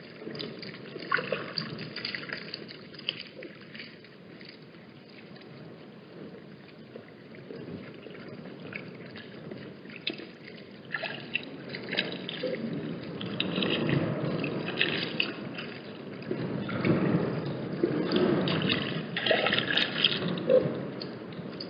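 Gusty wind noise mixed with trickling, dripping water at a watering hole, with scattered small splashes. It swells in gusts, louder in the second half.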